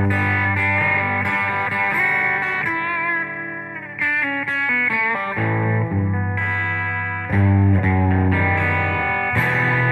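Guitar music, likely electric guitar: a run of plucked notes over held low notes, with the level dipping briefly about three to four seconds in before the playing picks up again.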